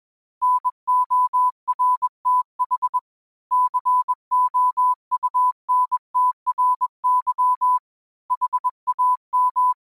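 Morse code sent as a single steady tone of about 1 kHz, keyed in short dots and longer dashes. It comes in three groups of characters, with pauses about three seconds and eight seconds in.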